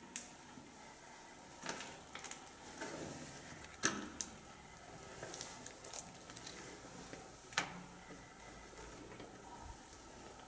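Footsteps crunching on debris on a concrete floor: a scatter of light clicks and knocks, the sharpest about four seconds in and another near eight seconds, over a faint steady hiss.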